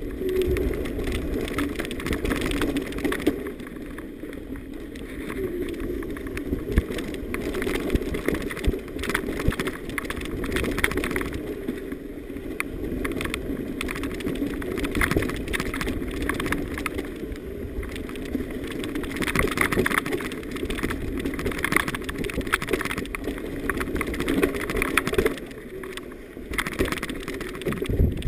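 Mountain bike ridden fast down a rough, bumpy dirt trail covered in dry leaves. The tyres rumble over dirt and leaves, and the bike gives a constant clatter of rattles and knocks over the bumps.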